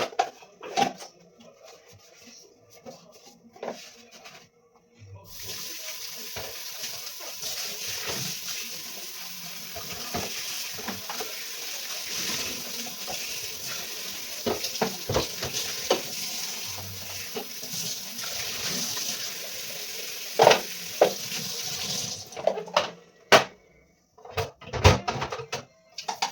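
Kitchen tap running into a sink with a steady hiss, turned on about five seconds in and shut off near the end, with scattered knocks and clatter of things being handled and rinsed, most of them after the water stops.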